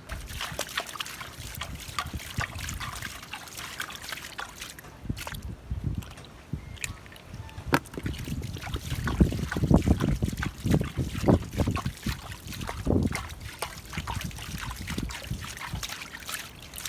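Water splashing and sloshing in many quick, irregular splashes, heaviest from about eight to thirteen seconds in.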